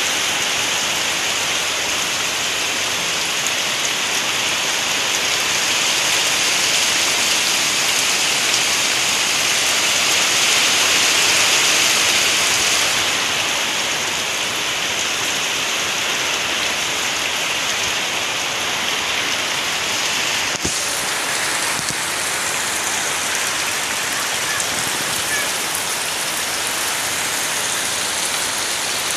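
Heavy typhoon downpour: a steady, loud rush of rain on leaves and ground, with water streaming off a roof edge. It swells slightly near the middle.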